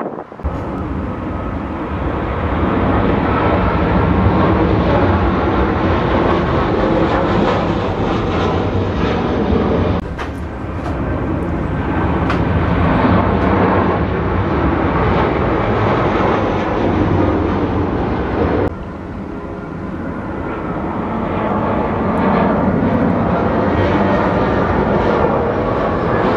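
Jet airliner engine noise, steady and loud, in three spliced clips that cut abruptly about 10 and 19 seconds in: an Airbus A340-300 arriving, then a Boeing 737-800 and an Airbus A320 flying overhead on landing approach.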